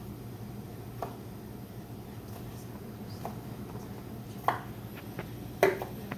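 Chef's knives dicing carrots and an onion on cutting boards: scattered, irregular knocks of the blades on the boards, two of them louder past the middle, over a steady low hum.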